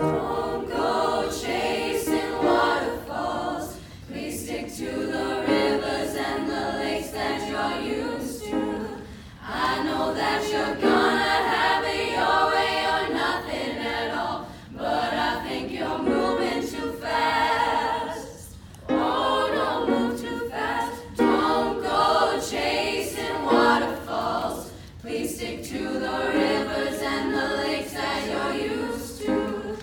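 Voices singing a cappella in harmony, without instruments, in sung phrases broken by short breaths every few seconds.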